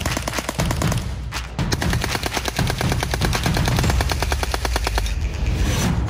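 Submachine gun firing full-auto: a burst that breaks off about a second in, then a longer burst of rapid shots lasting about three and a half seconds that stops about five seconds in.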